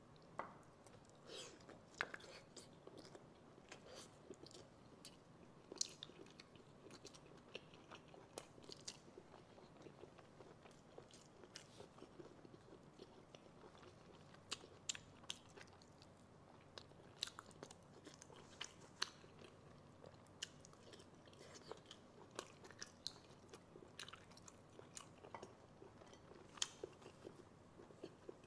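Faint, close-miked chewing of braised snail meat, with many sharp wet clicks and smacks from the mouth and the snail shells being handled.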